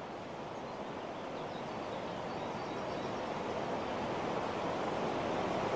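Steady rushing noise, slowly growing louder.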